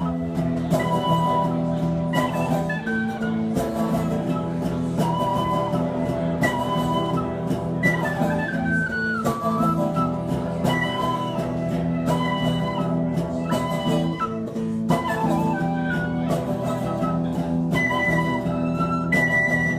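Tin whistle playing the melody over strummed guitar chords: the instrumental introduction of a song, performed live.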